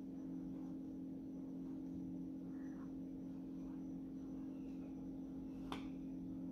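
Steady low electrical hum, with faint scratches of a felt-tip marker drawing on paper and one sharp click a little before the end.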